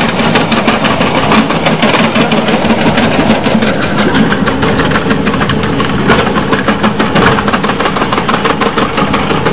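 Stainless-steel potato shredding machine running under load, its motor humming steadily while the spinning cutter slices potatoes into thin strips with a dense, rapid clatter.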